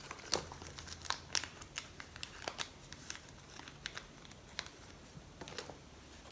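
Light, irregular clicks and taps of a lock and its small metal parts being handled, as the cylinder is locked back up with its key and readied for shimming.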